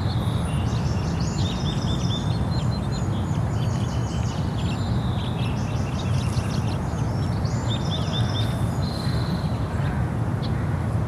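Small birds chirping and twittering in quick, dense runs of high notes, over a steady low rumble of outdoor background noise.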